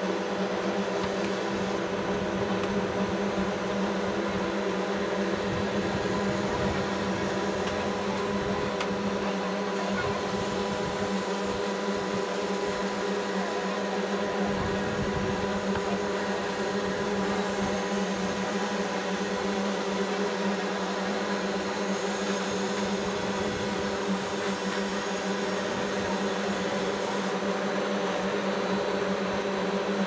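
Slipform concrete paver running as it creeps forward extruding a concrete slab: a steady machine drone with a constant low hum that does not change.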